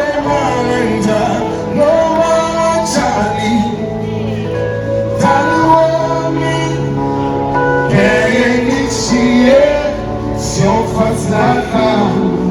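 Live music performance: voices singing held, gliding notes over instrumental accompaniment with a steady sustained bass.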